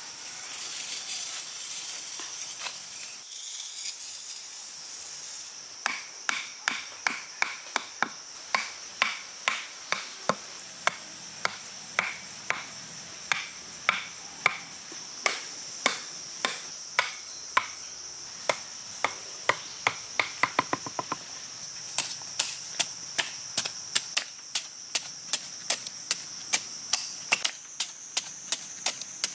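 A steady high insect drone runs throughout. From about six seconds in, over it, comes a long series of sharp hand-tool strikes, about two a second, each with a short ring, and a fast flurry about two-thirds of the way through.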